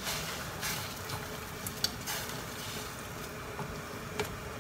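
Water boiling in a hammered aluminium saucepan of greens, a steady low hiss, with a few light clicks of long wooden chopsticks against the pan as the leaves are stirred.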